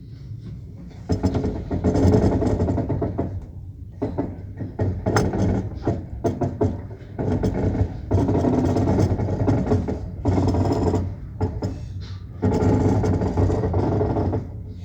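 A squeaking wheel creaking and squealing in five bursts of one to three seconds each, with short quieter pauses between them.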